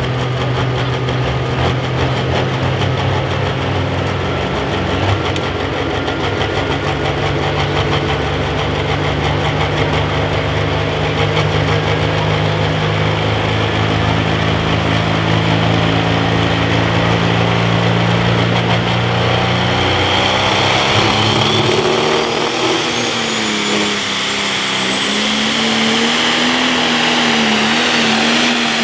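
Pro stock pulling tractor's turbocharged diesel engine running hard under load on a pull. About two-thirds of the way through, the engine note shifts higher and wavers, and a high turbo whine climbs steadily in pitch.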